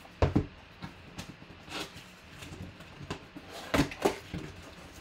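Cardboard shipping box being handled and its flaps pulled open: a series of sharp knocks, thuds and scrapes of cardboard, the loudest a pair just after the start and another pair near the end.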